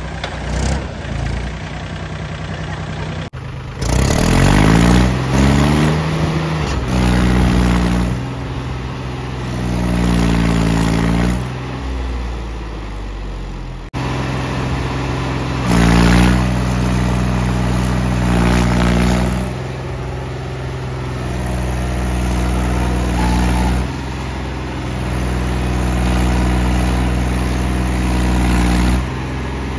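Mahindra B 275 DI tractor's diesel engine revving up and down over and over under load, as the tractor tries to drive itself out of being stuck in deep mud and water.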